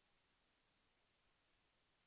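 Near silence: only a faint, steady hiss of the recording's noise floor.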